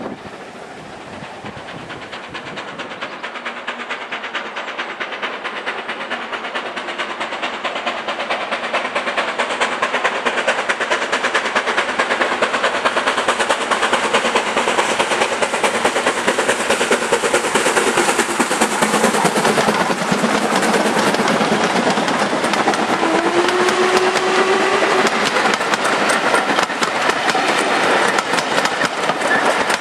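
Steam-hauled passenger train approaching and passing close by, growing steadily louder to a peak about two-thirds of the way through, with a rapid even beat of exhaust and wheels on the rail joints. Its coaches then roll past, and a brief steady tone sounds as they go by.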